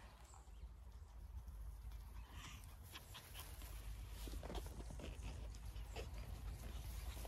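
Puppies running through long grass with light rustling and patter, and a faint high puppy chirp, growing louder as they come closer.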